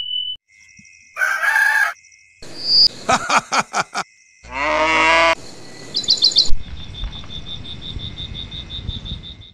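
A run of edited farm-animal sound effects: a rooster crowing, hens clucking and a cow mooing, cut one after another. Bird chirps follow about six seconds in, then a fast, even, high pulsing to the end.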